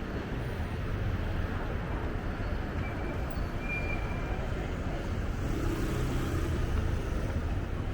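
Steady urban background noise with a low traffic rumble, with a brief faint high tone about three seconds in.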